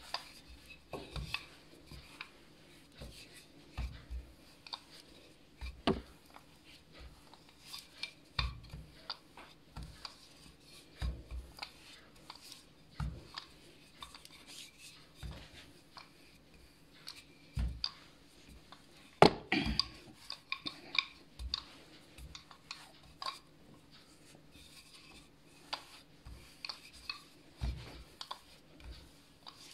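Wooden rolling pin rolling out lard-layered pastry dough on a stone worktop: repeated soft knocks and thuds every second or two, with rubbing between them, and one louder knock past the middle.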